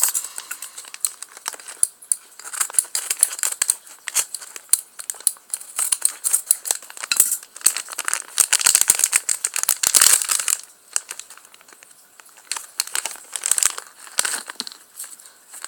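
Crinkly plastic blind bag being handled and opened: dense rustling and crackling that eases off briefly about three quarters of the way through, then starts again.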